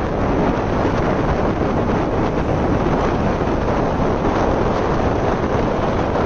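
Sea wind blowing hard across the microphone at the shore, a steady loud rush with breaking surf mixed in.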